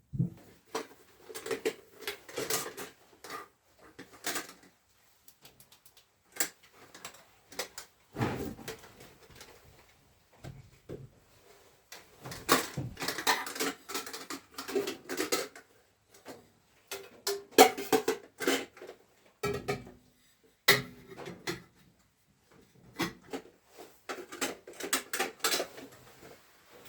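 Bursts of clattering and knocking from objects being handled and set down, several seconds of rapid clicks and knocks at a time with short pauses between.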